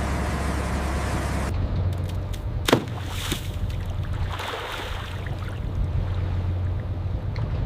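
Boat engine running with a steady low hum under the wash of water. The sound changes abruptly about one and a half seconds in, and a sharp knock comes shortly after.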